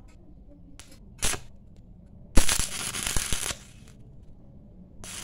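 Stick-welding arc crackling in short bursts as a coated electrode tacks a square steel tube joint. There is a brief crackle about a second in, a louder crackling burst of about a second in the middle, and the arc catches again near the end.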